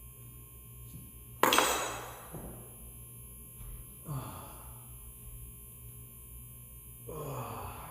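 A hammer strikes a steel chisel once, sharply, with a short metallic ring, while cutting a wood recess for a deadbolt. Later a man sighs twice, each sigh falling in pitch.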